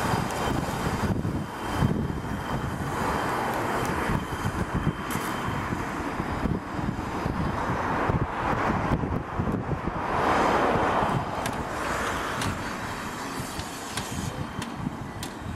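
Double Fairlie steam locomotive Merddin Emrys working slowly, with slow, uneven exhaust chuffs over hissing steam from the open cylinder drain cocks.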